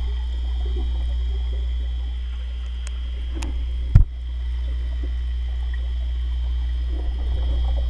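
Water sloshing in a catfish tank over a steady low hum, with one loud knock about four seconds in.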